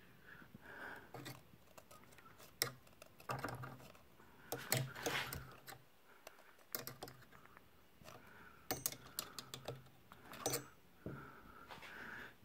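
Faint, irregular light clicks and taps from a small hand oil can at work as the joints of a small live-steam engine are oiled.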